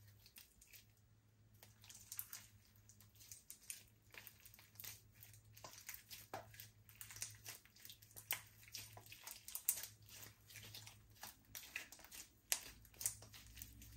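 Slime being mixed: a dense, irregular run of small sticky pops and clicks that starts about a second and a half in.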